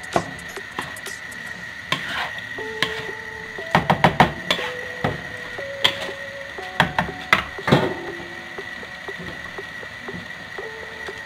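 Wooden spatula knocking and scraping against a nonstick wok while raw rice is stir-fried with its spices, the knocks coming in a quick cluster about four seconds in and again around seven to eight seconds in. Soft background music with held, stepping notes underneath.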